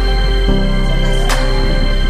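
Background music with steady held notes and a sharp percussive hit a little over a second in.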